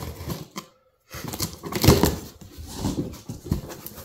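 A man's heavy, noisy breathing and sniffing through a stuffy nose in uneven bursts, mixed with cardboard box flaps being handled and pulled open. The sound drops out briefly about a second in.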